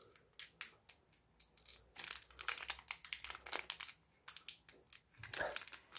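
Foil booster-pack wrapper crinkling and crackling in quick runs as fingers pull at its crimped top seam, a stiff seam that resists tearing open. There is a brief pause about two-thirds of the way through.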